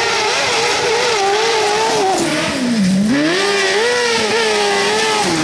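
Car-cross buggy engine revving hard at high pitch, the revs rising and falling quickly with the throttle, dropping sharply about halfway through and then climbing again.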